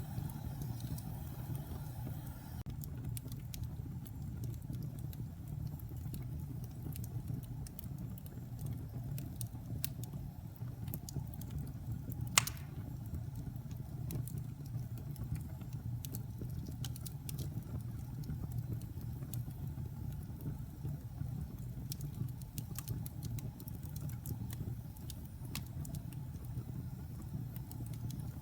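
Logs burning in a fireplace: a steady low rumble with frequent small crackles, and one sharp, loud pop about halfway through.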